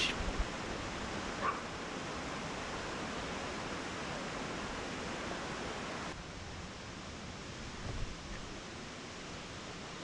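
Steady rushing of a mountain river over boulders and shallow rapids below a waterfall. It is an even wash of water noise that drops a little about six seconds in.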